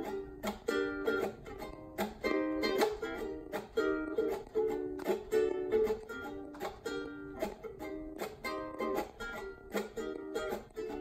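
Acoustic ukulele strummed in a steady rhythm, each stroke ringing out as a chord.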